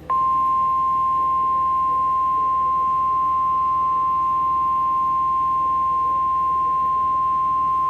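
Emergency Alert System warning alarm tone: a single loud, steady, high tone of about 1050 Hz, the weather-radio warning tone. It comes on just after the start and holds without change, marking that a tornado warning message follows.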